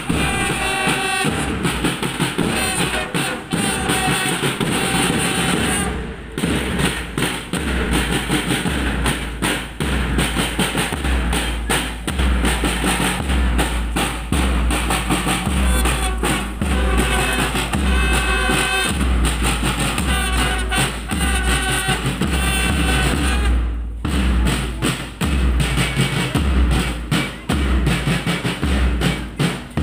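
A marching band playing a march: side drums rattling and a bass drum beating about once a second, under a melody on wind instruments. The music breaks off briefly twice.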